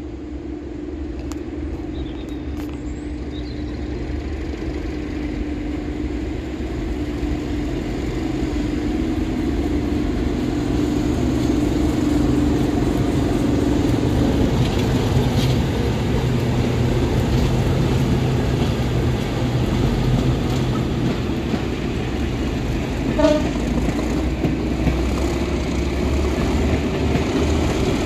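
Network Rail Class 97/3 diesel locomotive, a rebuilt Class 37 with an English Electric engine, passing close by while hauling passenger coaches. Its steady engine drone with heavy rumble grows louder through the passing. A brief sharp blip comes about three-quarters of the way through.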